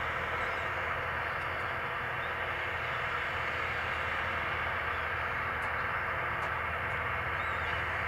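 A tractor engine running steadily as it pulls a plow, under the constant massed calling of a large flock of gulls.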